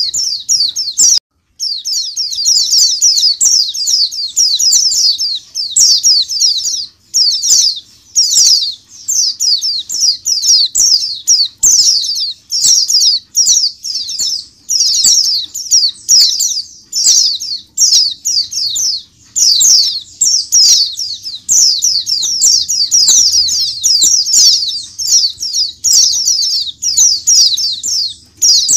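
A crowded cage of white-eyes (pleci) calling together: a dense, continuous chatter of short, high twittering chirps, with a brief break about a second in.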